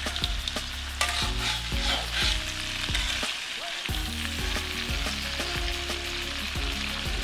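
A metal slotted spatula scraping and stirring palm weevil larvae in a steel wok, with repeated short scrapes over a steady light sizzle from a little oil on low heat.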